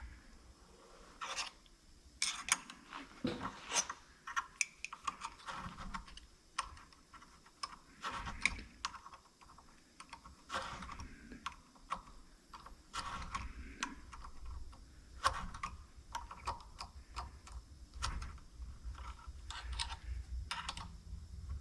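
Irregular light metal clicks and taps of hand tools working on a Starrett magnetic base, with a faint low rumble joining in about a third of the way through. The tools stand in for a spanner wrench to turn a threaded part tight.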